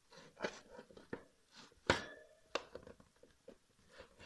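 Scattered clicks and rustles of a hand working at a wire hamster cage, with one sharper click about two seconds in.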